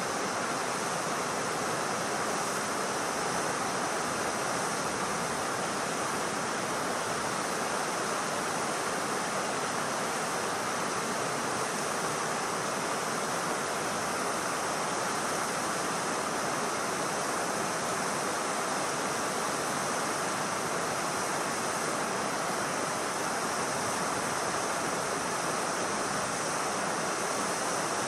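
Steady rushing of water pouring over a dam, an even noise that does not rise or fall.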